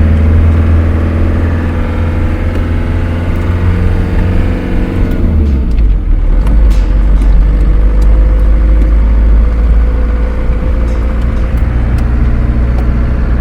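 Campervan engine and road noise while driving, a steady hum; about five seconds in the engine note drops and settles into a lower, steady rumble.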